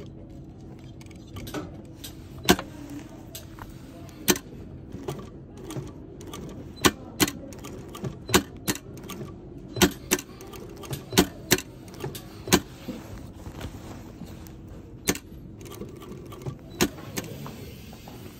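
Sewing machine stitching a metal zipper into denim: a steady motor hum that stops near the end, with irregular sharp metallic clicks.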